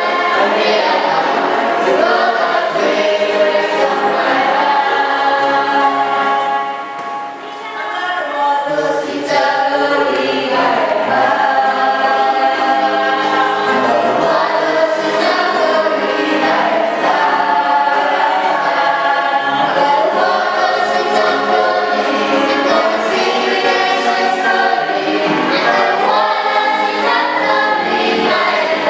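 Choir singing in sustained vocal lines, dropping briefly about seven seconds in between phrases.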